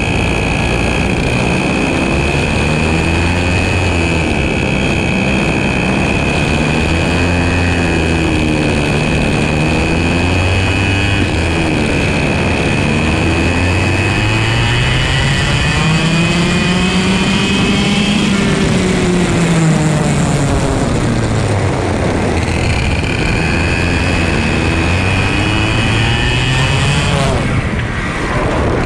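Two-stroke IAME KA100 kart engines heard onboard. The kart's own engine rises and falls in pitch through the corners, with a long climb to high revs about halfway and another rise near the end, over a steady high whine.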